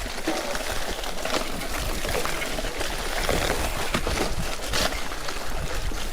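Mountain bike ridden over a wet trail, filmed from a chest-mounted action camera: a steady rush of tyre and wind noise with a low rumble on the microphone, and frequent small rattles and clicks from the bike.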